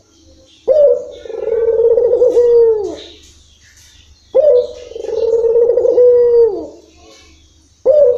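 Ringneck dove (puter) cooing: two long drawn-out coos of about two seconds each, each opening sharply, holding a steady pitch and dropping at the end, with a third coo starting near the end.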